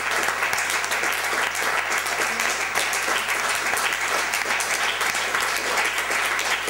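Audience applauding steadily after a reading.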